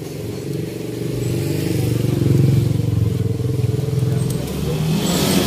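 A motor vehicle's engine running close by, growing louder to a peak about halfway through and then easing off.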